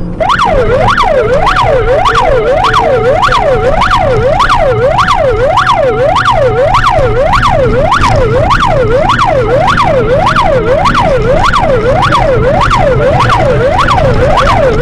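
Emergency vehicle siren in a fast yelp, its pitch sweeping up and down about twice a second. It starts abruptly and runs loud over a low vehicle rumble, with a steady tone sounding alongside it for a few seconds.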